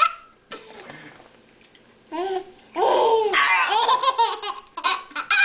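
Baby's belly laugh: a short burst about two seconds in, then a long run of high-pitched, choppy laughter, and one more short laugh near the end.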